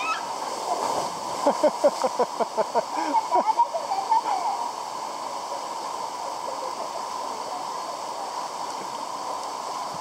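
Steady rush of a waterfall pouring down a smooth rock slab into a plunge pool. About a second in, a quick run of louder short sounds rides over it for about three seconds.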